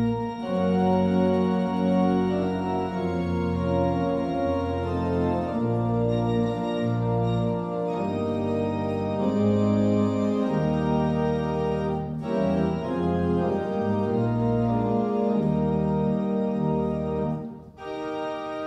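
Organ playing slow sustained chords over a moving bass line, processional music. It breaks off briefly near the end and carries on more softly.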